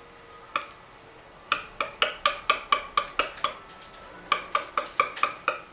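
A quick series of sharp clinking taps, like hard metal or china being struck, about four a second, in two runs with a short pause between.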